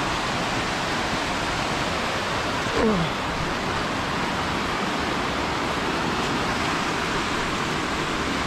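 Waterfall rushing steadily. About three seconds in, a short voice sound falls in pitch over it.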